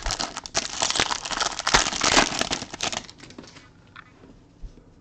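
A trading-card pack wrapper torn open and crinkled by hand, a dense crackling for about three seconds, then quieter handling of the cards.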